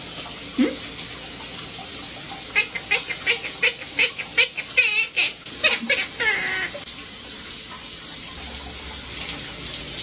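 Monk parakeet talking, a quick string of short, high-pitched mimicked words like "pretty pretty bird", over the steady hiss of a running shower. The talking starts about two and a half seconds in and stops near seven seconds.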